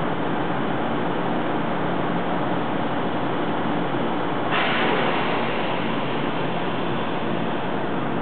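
Hanshin 5500 series electric train standing at a platform with its doors open, its equipment giving a steady hum. About halfway through, a sudden hiss rises and fades over a couple of seconds.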